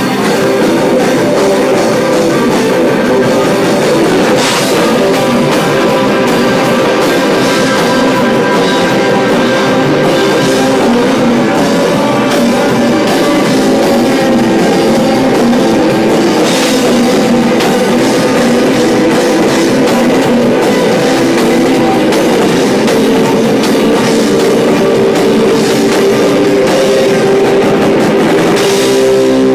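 Garage rock band playing live: loud electric guitar and drum kit, with a few cymbal crashes.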